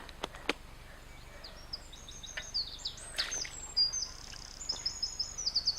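A small songbird singing a long, fast, high-pitched song of varied chirps and trills, ending in a rapid run of repeated notes, over faint outdoor background noise. A couple of sharp clicks come right at the start.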